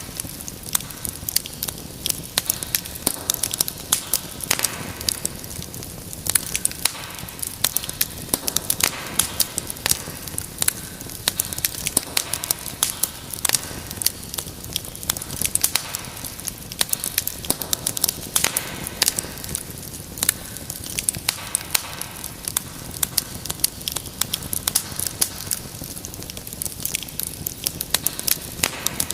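Wood fire burning in a fireplace: steady crackling and frequent sharp pops and snaps over a low rush of flame.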